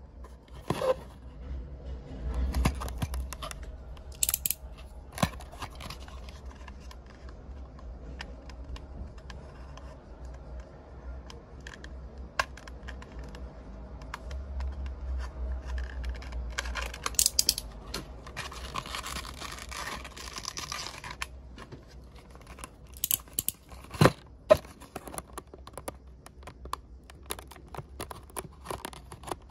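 Clear PET plastic blister pack on a card backing being handled: scattered crinkles, scrapes and sharp clicks, with a longer rustle about two-thirds of the way through.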